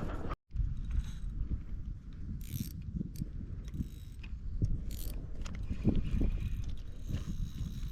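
Fishing reel being cranked to retrieve a lure, a steady mechanical winding with many small ticks.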